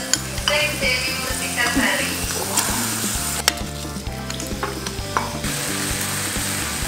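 Meat, sausage and onion sizzling on a hot grill pan over a portable gas stove. A couple of sharp clicks, like metal tongs, sound about midway.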